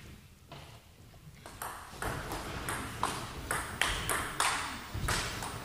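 Table tennis rally: the ball clicking off rackets and table in a quick, irregular series of sharp knocks that grows louder as the rally goes on.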